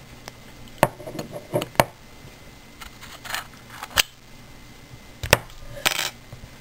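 Small metal clicks and light scraping as a brass pin-tumbler discus padlock and its picking tools are handled: four sharp clicks, irregularly spaced, with brief rustling scrapes between them.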